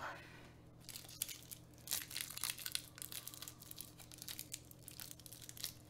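A wrapper being crinkled and torn open by hand, in irregular crackles that start about a second in.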